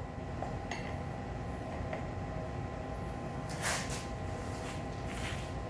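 Small metal parts lightly clinking and scraping as a wheel spacer and axle are handled and fitted to a mini bike's front wheel. There are a few faint clicks and a short scrape about three and a half seconds in.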